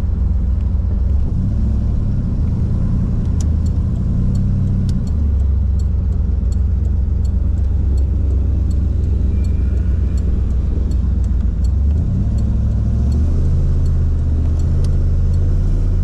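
Boosted 408 cubic-inch LS V8 running under way, heard from inside the car's cabin: a low, steady engine drone whose note climbs about a second in, drops about five seconds in, and climbs again about twelve seconds in. Faint quick ticks sound through the middle.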